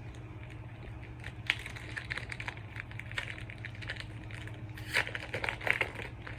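Foil wrapper of a Pokémon booster pack crinkling and crackling as it is handled and opened, a dense run of small crackles starting about a second and a half in, loudest near the end.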